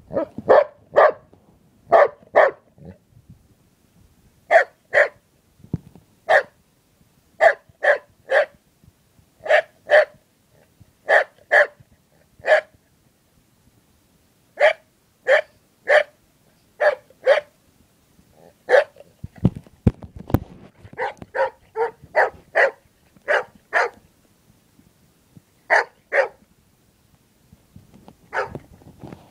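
Golden retriever barking repeatedly: short, sharp barks, singly and in quick pairs and triples, broken by pauses of a second or two.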